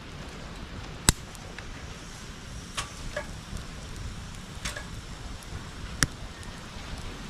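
Bonfire crackling over a steady low rumble, with a loud sharp pop about a second in, another at about six seconds, and a few smaller snaps between.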